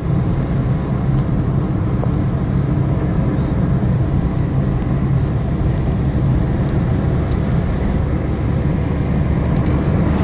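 Steady low rumble of a car being driven on an open road, heard from inside the cabin: engine and tyre noise.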